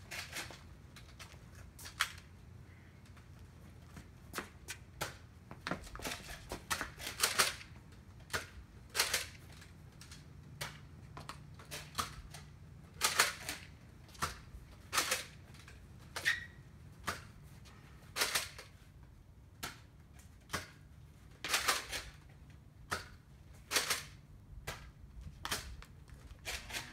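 Nerf spring blasters being primed and fired: sharp plastic clacks and pops at irregular intervals, often in quick pairs or bunches of two or three.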